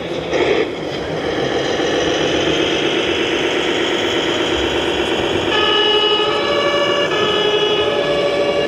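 Siren of a radio-controlled model MAN fire ladder truck with its blue lights on: a steady horn-like tone that switches about five and a half seconds in to an alternating two-tone high-low siren.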